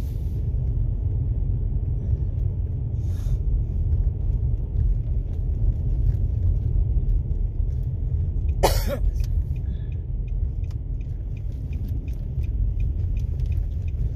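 Steady low road rumble inside a moving car. A brief sharp sound comes about nine seconds in, and faint, evenly spaced ticking runs through the last few seconds.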